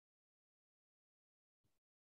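Near silence, broken only by a very faint, brief blip near the end.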